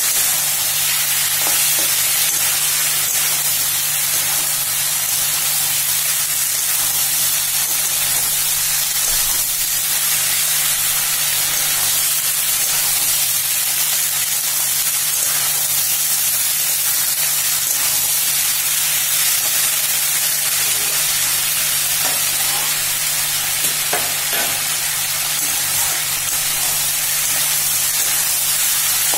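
Chilli chicken with onions and capsicum sizzling in a metal kadai as it is stir-fried: a steady frying hiss, with the spatula now and then scraping and knocking against the pan.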